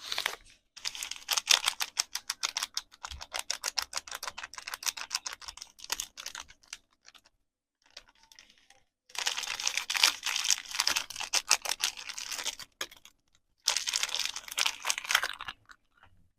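Soap packaging handled close to the microphone: rapid, crisp crinkles and taps in long runs broken by short pauses.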